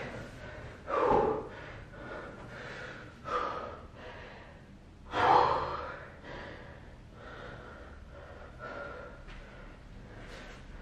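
A man breathing hard after exertion, with loud gasping breaths about one, three and a half, and five seconds in, then quieter, steadier breathing.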